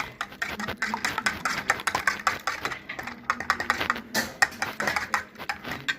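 Fork beating eggs in a bowl, clicking rapidly against the bowl's sides at several strokes a second.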